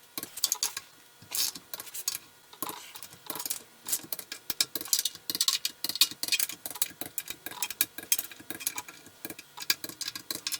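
Ratchet wrench clicking in quick, irregular runs while tightening the oil pan bolts of a Ford C6 automatic transmission to about 12 foot-pounds.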